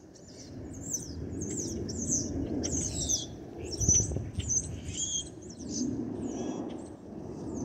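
A songbird chirping rapidly in short, high notes, some sweeping down in pitch, over the low rumble of a Boeing 717's Rolls-Royce BR715 jet engines passing overhead, which swells about a second in.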